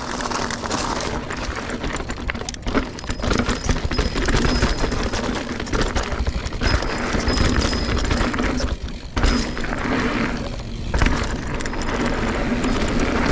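A Specialized Stumpjumper mountain bike descending a rough dirt trail: a continuous low rumble from the tyres and wind, with dense rapid rattling and clatter from the chain and frame over roots and rocks.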